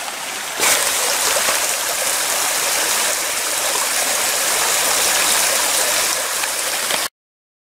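Small mountain creek running over rocks, a steady rushing of water. It grows louder about half a second in and cuts off abruptly near the end.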